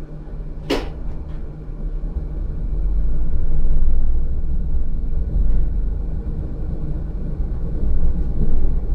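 Rotax E6/EU8N tram heard from inside the passenger saloon: a low, steady running noise of the car and its running gear, growing louder from about two seconds in as it gets under way. A single brief sharp click sounds just under a second in.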